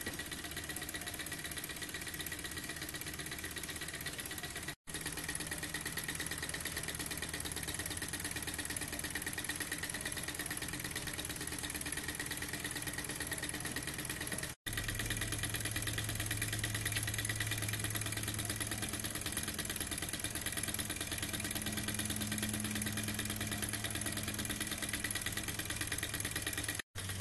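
Tarot beam-type model Stirling engine running steadily under its burner flame: a fast, even ticking and clatter from its piston, walking beam and crank linkage. A low steady hum joins after a cut about halfway through.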